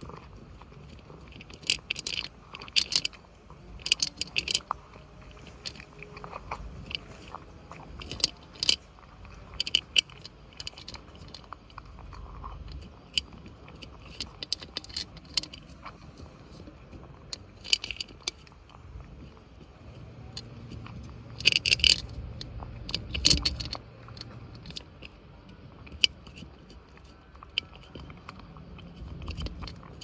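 A cat crunching dry kibble, eating from a glass bowl. Sharp crunches come in irregular bursts of chewing with short pauses between them.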